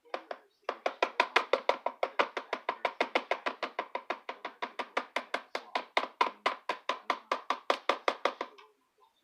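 Rapid, even knocking of a hard object against a bowl, about five to six strokes a second, starting after a short first burst and stopping shortly before the end.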